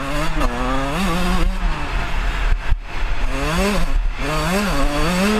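125cc two-stroke motocross bike engine running hard, its pitch rising and falling as the throttle is worked. There is a brief drop off the throttle about two and a half seconds in, then three quick revs up in the second half.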